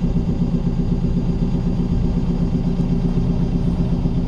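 Hire cruiser's inboard diesel engine running steadily at cruising speed on the river, a constant low drone.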